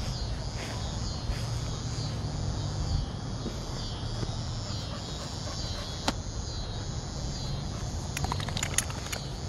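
Steady outdoor chorus of insects, a high continuous chirring with an evenly repeating pulse, over a low rumble. A few sharp clicks come near the end.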